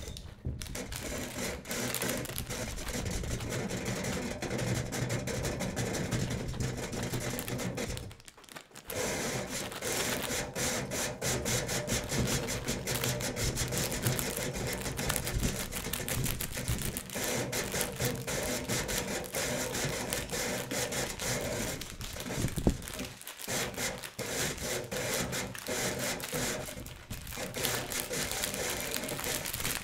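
Improvised music played on household objects used as percussion: a dense, steady wash of noise crowded with rapid clicks and rattles. It drops out briefly twice, about eight seconds in and again about twenty-three seconds in.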